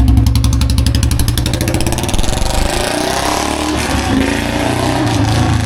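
Royal Enfield Bullet single-cylinder engine, fitted with a C-bend exhaust pipe, pulling away as the bike is ridden off. Its even thumping exhaust beat loosens and drops a little after about two seconds.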